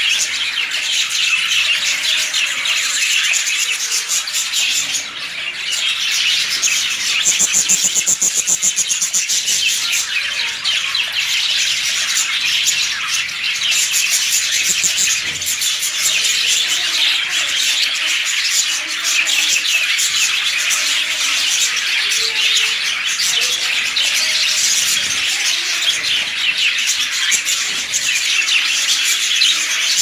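A flock of lovebirds chattering, a dense, unbroken stream of high-pitched chirps and squawks from many birds at once.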